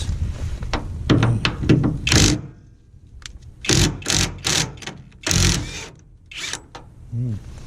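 Wrench on a 19 mm bolt, worked in short strokes: a few clicks, then a run of brief mechanical ratcheting and rasping bursts as the bolt is turned loose.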